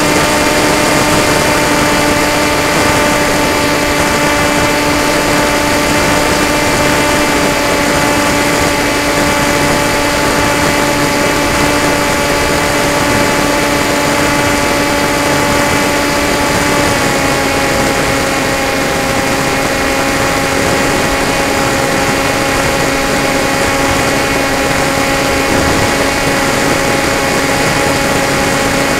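Electric motor and propeller of an FPV model aircraft running at steady cruise throttle, picked up by the onboard camera as a steady tone over a haze of wind rush. The pitch drops slightly about seventeen seconds in as the throttle eases.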